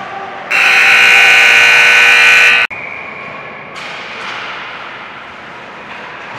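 Hockey rink buzzer sounding loud and harsh for about two seconds, then cutting off abruptly.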